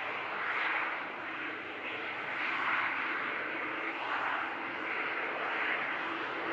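Boeing C-17 Globemaster III's four Pratt & Whitney F117 turbofan engines running at taxi power, a steady jet rush and whine that swells and eases slightly.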